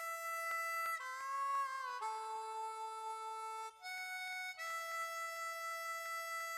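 Background music: a harmonica playing held chords that change every second or two, with a light ticking beat in the first second.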